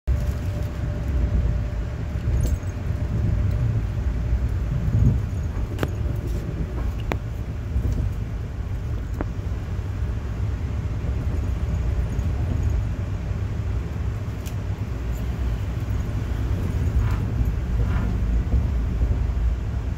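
Amtrak Northeast Regional train at speed heard from inside a passenger coach: a steady low rumble of wheels on rails, with a few faint clicks and rattles between about six and nine seconds in.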